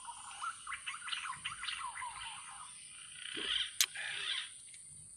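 Wild birds chirping in a quick run of short, rising calls over the first two and a half seconds, over a steady high-pitched hum. A single sharp click comes near the four-second mark.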